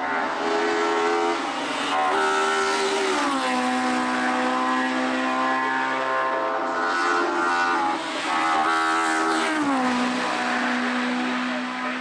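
A race car's engine running hard on a hillclimb course. Its pitch steps up twice early on, falls about three seconds in, holds steady, then rises again and drops away near the end.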